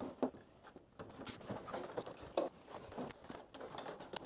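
Faint scattered ticks and rustles of handling: hands and a small glue bottle working along a stitched plywood kayak hull.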